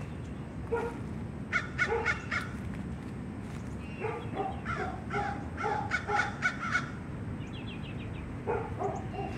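Crows cawing in runs of short, repeated calls, over a steady low background hum. A faint high bird chirp comes in near the end.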